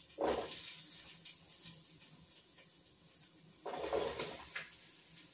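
Chunks of potato dropped into a pot of sautéed onions on the stove, in two handfuls: two short bursts of noise, the second about three and a half seconds after the first.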